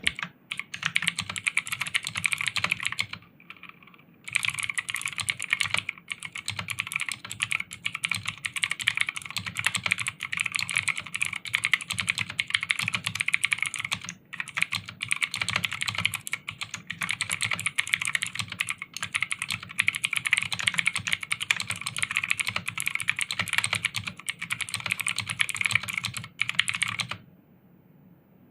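MK60 60% mechanical keyboard with clicky Blue switches being typed on in a rapid, continuous run of clicks. The typing pauses briefly about three seconds in and stops a little before the end.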